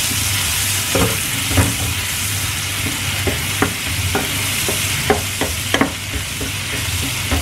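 Minced shallots and garlic sizzling in hot oil in a pan while being stirred with a spatula. The spatula knocks and scrapes against the pan several times.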